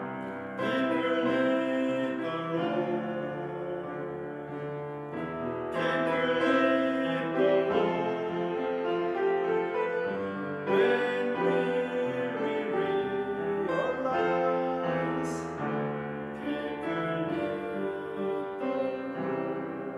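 Music led by piano, slow and sustained, with a new phrase entering about every five seconds.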